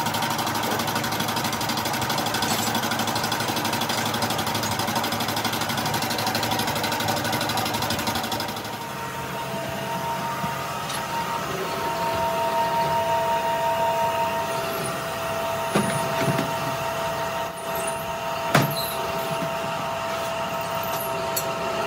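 Factory machinery running. A dense, rapid clatter gives way about a third of the way in to a steadier machine noise with two steady whining tones. Two sharp knocks come later on.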